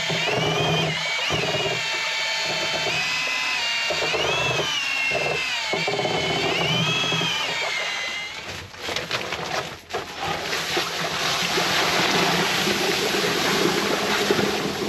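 Milwaukee cordless drill turning a mortar mixing paddle through sugar water in a plastic tub, its motor whine rising and falling in pitch as the load shifts. It stops about eight seconds in, with a few knocks. Then granulated sugar pours from a paper sack into the solution with a steady hiss.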